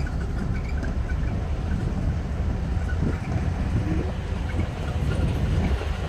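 A vehicle driving along a rough dirt forest road: a steady low rumble of engine and tyres.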